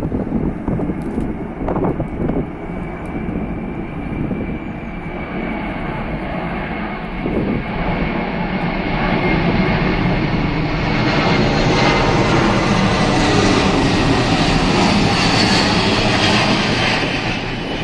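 Boeing C-17 Globemaster III's four Pratt & Whitney F117 turbofans on low landing approach, gear down. The jet noise builds as the aircraft closes in and is loudest in the last third, with a steady whine that slowly falls in pitch.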